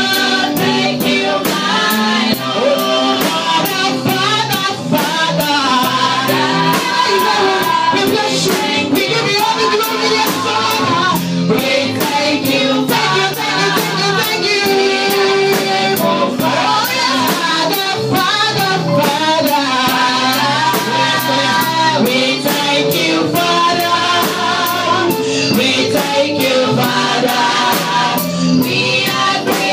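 Gospel praise music: voices singing over a band, with drums keeping a steady beat.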